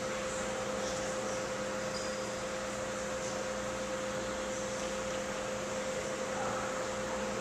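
Steady hum and hiss of a large hall's ventilation or air-handling machinery, with a constant mid-pitched tone running through it.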